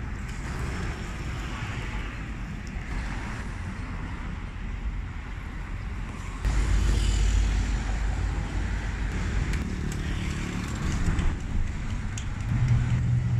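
Street traffic passing steadily, a low rumble of cars and engines that gets louder about halfway through.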